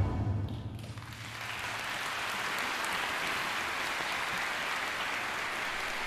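Audience applauding steadily. In the first second the low tail of the orchestra's closing chord dies away and the clapping builds up.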